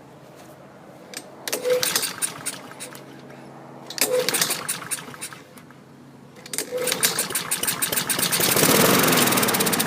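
Honda HRR216 lawn mower's GCV160 engine being pull-started after a shot of carb cleaner: two pulls fire briefly and die away, then a third, about six and a half seconds in, catches and runs, speeding up. It is firing on the carb cleaner, a sign of a fuel or carburettor problem that the owner puts down to old, contaminated fuel.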